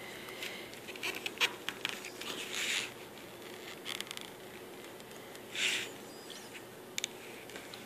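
Fingers rustling and tapping on the paper pages of a spiral-bound booklet: scattered small clicks and a few short brushing rustles.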